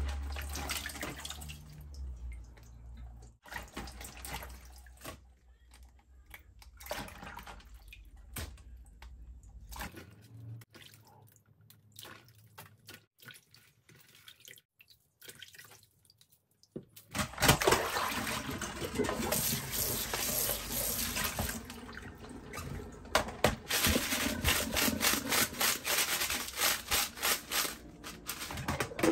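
Water splashing and dripping in a steel sink as live crabs are rinsed and handled by hand in plastic bowls, with sharp clicks of shells against plastic. About seventeen seconds in, a steady rush of running tap water starts, with many clicks over it.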